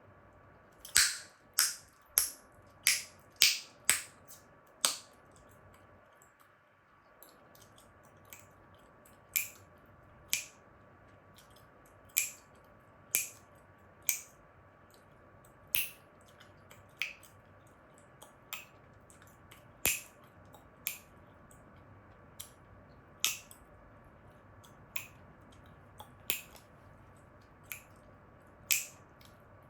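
Chewing gum being snapped and cracked in the mouth: a quick run of sharp pops in the first few seconds, then single snaps every second or two.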